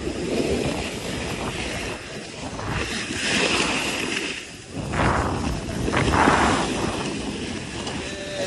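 Snowboard and ski edges scraping and sliding over packed snow on a ski run, mixed with wind rushing over the microphone. The noise swells twice, about three seconds in and again a little past the middle.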